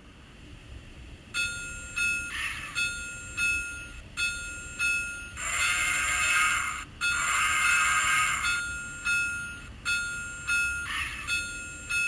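Steam-locomotive sound effects from the DCC sound decoder in an N scale Bachmann 0-6-0: a locomotive bell ringing steadily, about one stroke every two-thirds of a second, broken by several bursts of steam hiss.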